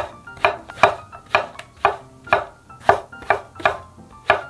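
Chef's knife cutting king oyster mushroom on a wooden cutting board, the blade knocking the board about ten times at a steady pace of roughly two strokes a second. Soft background music underneath.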